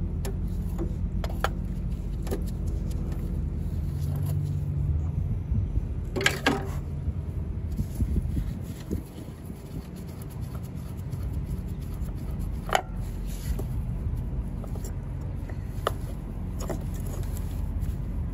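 An engine running steadily at idle, with scattered sharp metallic clicks and clinks over it and a louder clatter about six seconds in.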